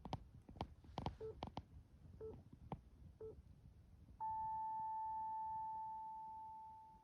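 Radio time signal: three short low pips about a second apart, then one long higher tone an octave up that slowly fades, marking the top of the hour. Sharp clicks sound through the first half.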